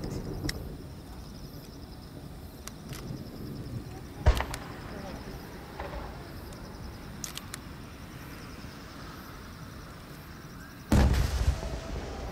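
Large aerial firework shells going off: a sharp bang about four seconds in, then a heavy boom with a low rumble that rolls on near the end.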